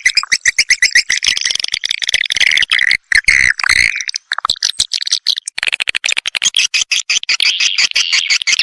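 Swiftlet lure recording: dense, rapid chittering calls of edible-nest swiftlets, played to draw swiftlets into a new or stagnant swiftlet house. The chittering thins out about four seconds in and comes back in full a second or so later.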